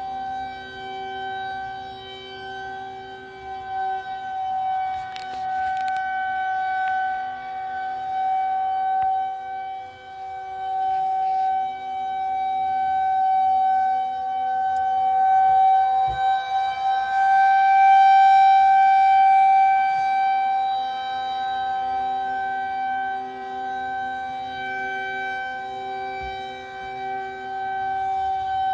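Federal Signal 2001-130 rotating tornado siren sounding a steady single tone at full speed, rising and falling in loudness as its horn sweeps around.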